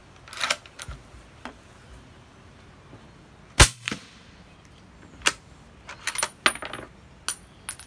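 Sharp metallic clicks and knocks from a suppressed Remington 700 bolt-action rifle being handled at the bench, with one much louder sharp crack about halfway through and a quick cluster of clicks near the end.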